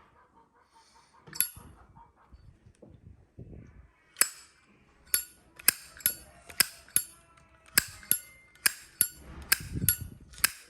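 Solid-brass Zippo lighter's lid flicked open and snapped shut over and over: a single sharp metallic click early, then from about four seconds in a string of crisp clicks about two a second. The clean lid click is what the seller right afterwards calls a nice sound.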